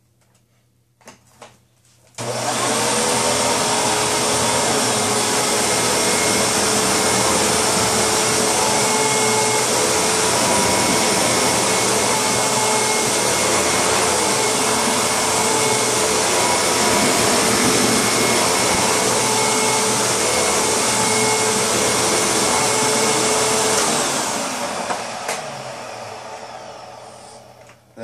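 Hoover WindTunnel Supreme upright vacuum cleaner switched on about two seconds in, running steadily with a whine as it sucks up shredded paper from carpet. Near the end it is switched off and its motor winds down.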